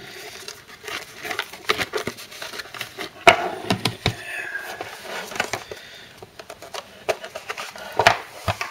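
Handling noises as trading card boxes and their packaging are moved and set down: scattered knocks and clicks, a sharper knock about three seconds in, and brief rustling.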